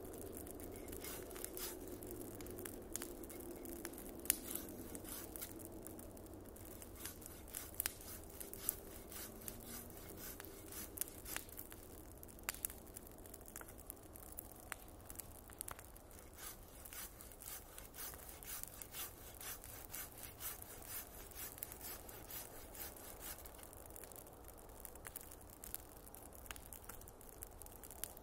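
Wood bonfire crackling, with many small irregular pops and snaps.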